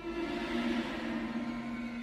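Tense film-score music: low held tones with a hissing swell that builds about half a second in.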